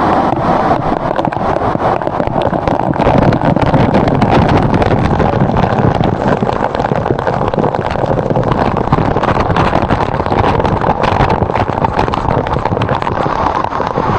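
Loud, steady rush of falling water from a waterfall close to the microphone, with constant crackle and spatter.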